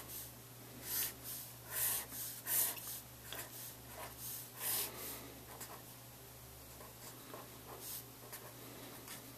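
Felt-tip marker drawing lines and writing numbers on graph paper: a string of short, separate scratchy strokes, over a faint steady low hum.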